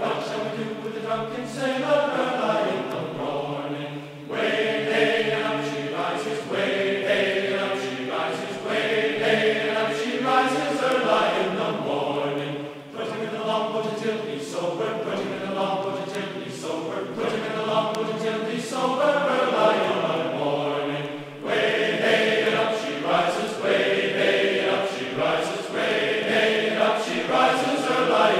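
A group of voices singing a sea shanty together.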